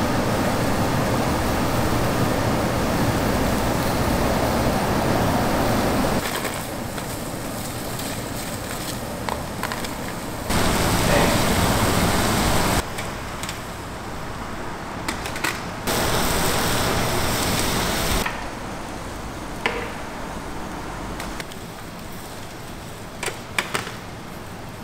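Shellfish sizzling and hissing as they grill over a coal briquette fire, with a few sharp pops; the hiss jumps up and down in level at several cuts between shots.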